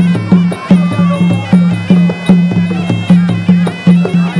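Traditional Kun Khmer ring music: a reedy, wavering sralai oboe melody over a steady drum beat of about two to three strokes a second.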